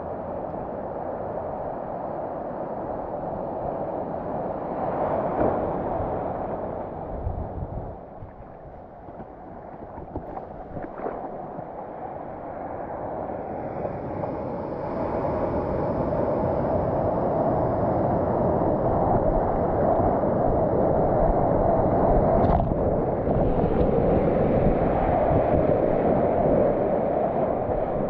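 Ocean water sloshing and washing around a GoPro held low on the surface, steady and noisy, getting louder in the second half.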